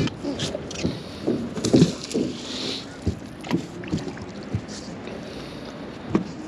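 Irregular knocks and clatter of gear being handled aboard a small boat, most of them in the first four and a half seconds and one more near the end, with a short hiss about two to three seconds in.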